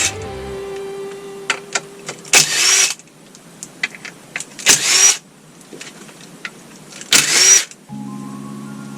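Background music, with scattered light clicks of transmission parts being handled and three short, loud rushing hisses spaced a couple of seconds apart.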